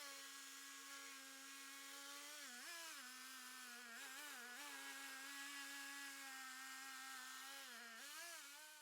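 Faint Stihl 440 two-stroke chainsaw running at high revs under load in a chainsaw mill while ripping a slab. The pitch holds steady, sagging and recovering briefly a few times (about two and a half, four and eight seconds in) as the engine bogs in the cut.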